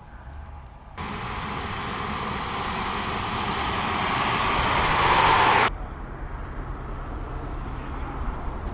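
Road vehicle noise: a broad rushing sound that starts suddenly, grows steadily louder for several seconds and cuts off abruptly, leaving a quieter low rumble.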